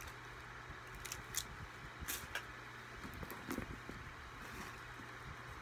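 Hands rummaging through a handbag: scattered light clicks and rustles of small items being moved about, over a steady low hum.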